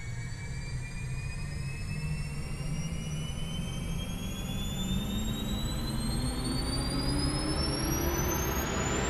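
Spacecraft take-off sound effect: engines running with a low rumble and a whine that rises steadily in pitch, growing slowly louder as the craft climbs.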